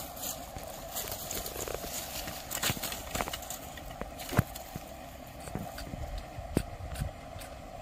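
Irregular sharp knocks and rustles from handling a small, freshly caught rohu while it is unhooked, the loudest knock about halfway through, over a steady background drone.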